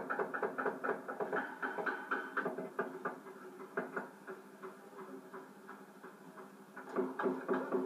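Rapid, even knocking, about four to five strokes a second, over a steady low hum; it fades in the middle and picks up again near the end.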